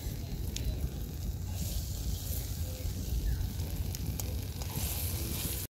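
Semolina-and-egg pitha frying in hot oil in a kadai, sizzling steadily, with a few faint crackles.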